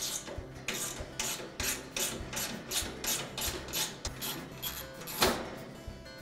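Screwdriver backing a mounting screw out of a gas grill's manifold bracket: a rasping scrape with each twist, about two a second, with a louder scrape about five seconds in.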